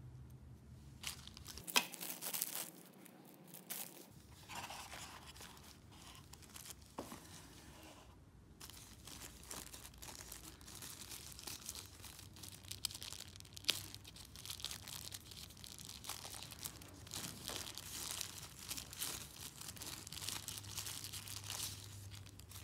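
Thin clear plastic bag crinkling and rustling as it is handled and slid off a small LED light panel, in irregular handfuls, with a couple of sharp clicks.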